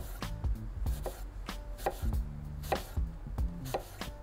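Knife slicing a green Granny Smith apple on a wooden cutting board: a quick run of crisp cuts, about three a second, each stroke knocking on the board.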